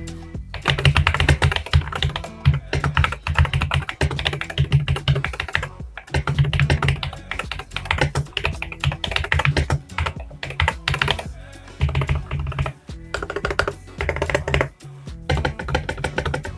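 Typing on a mechanical keyboard fitted with Akko Cream Blue Pro V3 tactile switches: quick runs of keystrokes broken by short pauses, with a fairly ringing clack from the factory-lubed switches.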